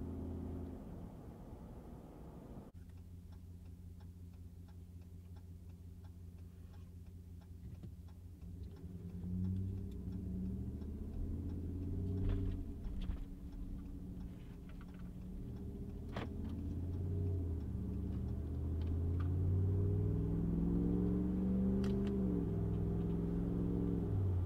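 Ram 1500's 5.7-litre Hemi V8 with a Mopar cat-back exhaust, heard from inside the cab. It runs low and steady at first, then pulls away from a near stop; the exhaust note rises and drops back through several upshifts as the truck gets up to road speed, growing louder toward the end.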